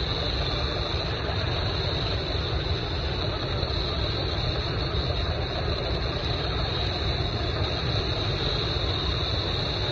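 Shortwave radio static from a receiver on a weak broadcast: a steady hiss and rumble with a steady high hiss on top, and no programme audible through it.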